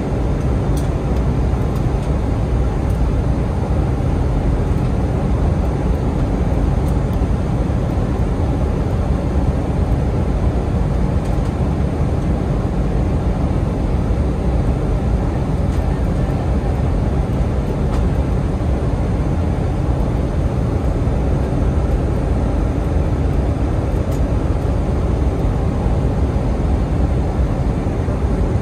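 Airbus A320 cabin noise during the descent to land: a steady, even rush of airflow and engine drone that stays at one level throughout.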